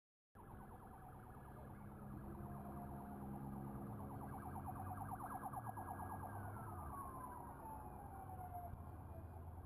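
Police sirens sounding, a rapid warble with one tone that holds high and then slides down in pitch about two-thirds of the way through, over a steady low hum.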